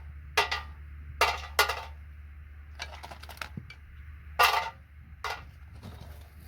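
Small salvaged keyboard parts clinking and rattling as they are picked up and dropped together, about seven short bursts at irregular intervals.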